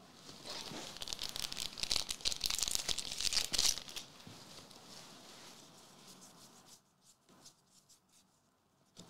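A foil trading-card booster pack being torn open and its wrapper crinkled: dense crackling for about four seconds, then fading to near quiet.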